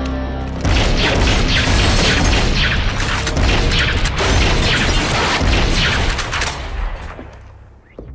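Film action sound: a long, dense barrage of gunfire with booms and crashing debris, starting suddenly about a second in and dying away over the last second, over a film score.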